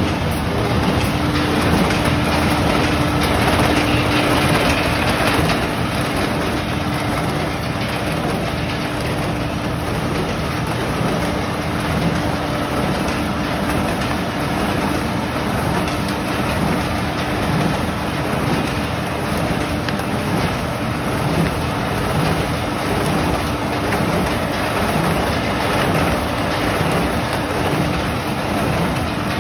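Flexo printer with a rotary die-cutter running, its rollers feeding and cutting corrugated cardboard sheets: a steady, dense clatter and rumble with a faint steady hum underneath.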